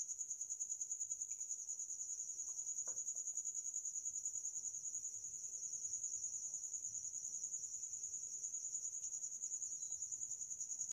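Steady, high-pitched insect trill, pulsing rapidly and without a break.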